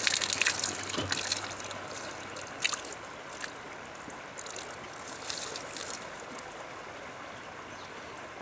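Small stream trickling steadily, with some louder splashing in the first second or so.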